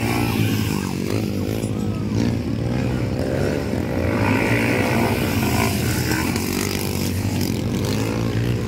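Several motocross dirt bikes' engines running together as the riders come along the dirt track, their pitch rising and falling with the throttle.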